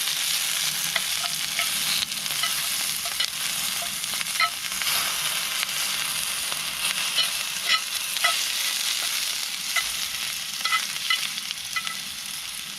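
Beef steak sizzling over a wood campfire: a steady hiss of frying fat with frequent short pops and crackles scattered through it.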